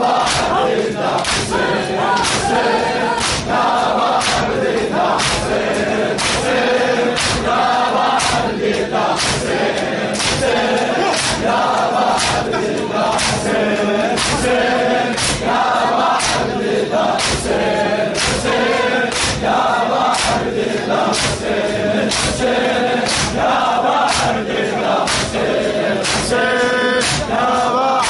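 A large crowd of men performing latm, beating their chests in unison with a steady beat of sharp slaps a little over once a second. Over the slaps a male reciter chants a Muharram lament, with the crowd singing along in chorus.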